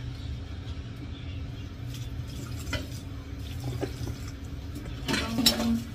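Dishes being washed at a kitchen sink: small clinks of dishes and utensils, then water from the tap running louder for a moment near the end, over a steady low hum.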